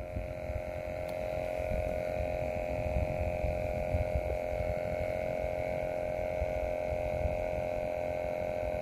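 A steady hum holding on a few pitches, unchanging throughout, over a low uneven rumble.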